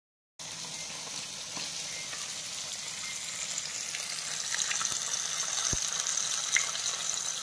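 Masala-coated small fish sizzling as they shallow-fry in hot oil in a pan, a steady hiss with a few sharp pops of spattering oil.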